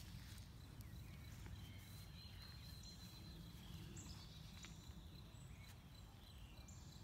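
Quiet outdoor background with birds chirping faintly in high short calls, and soft scuffs of wood-chip mulch as a dog pushes it with her nose to cover a buried bone.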